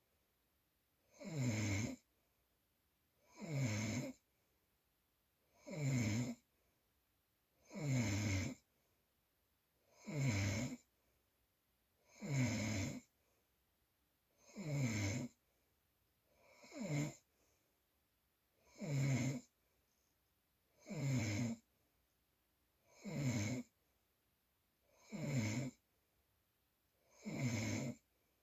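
Loud snoring, one snore about every two seconds, each short and pitched, with silence between breaths.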